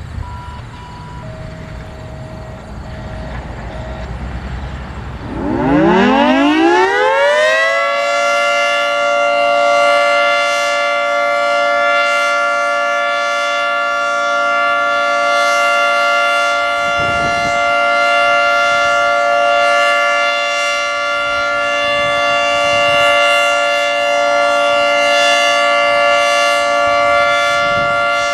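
Federal Signal 3T22 three-tone electromechanical warning siren winding up about five seconds in. Its pitch rises for a couple of seconds into a steady chord of several tones, which holds with gentle swells in loudness.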